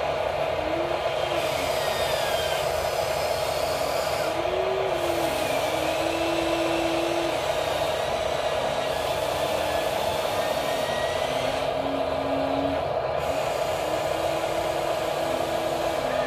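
Electric motors of a toy RC excavator whining as it digs sand and raises and swings its boom, the whine stepping up and down in pitch with each movement over a steady hum.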